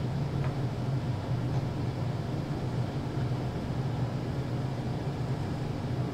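Steady low room hum, with faint scratching of a pin tool scoring the edge of a soft clay slab.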